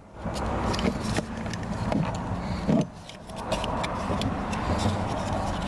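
Scattered light clicks and knocks of car door trim parts being handled and pried off, with one louder knock near the middle, over a steady low background rumble.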